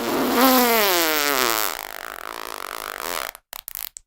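A long fart: a tone that falls steadily in pitch for over a second, trails off into a rasp, then breaks into a few short sputters near the end.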